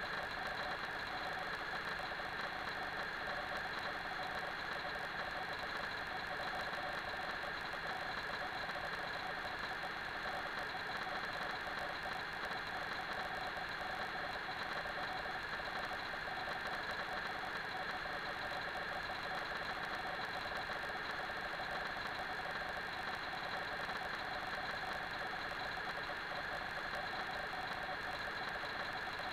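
A steady, unchanging mechanical whir with several constant high tones.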